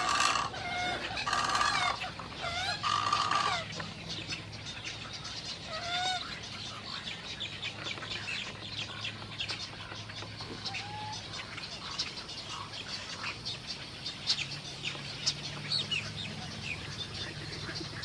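Egrets calling in a nesting colony: several loud squawks in the first few seconds, then many quieter short calls and clucking chatter.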